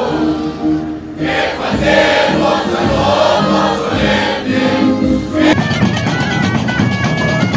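A group of voices singing together in short held phrases, with the mixed sound of a crowd or choir. About five and a half seconds in it cuts abruptly to music with a regular beat.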